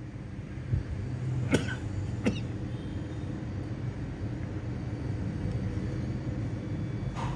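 Corded electric drill running with a thin bit, drilling into a metal bottle cap, a steady low motor hum. A few sharp clicks in the first couple of seconds and one near the end.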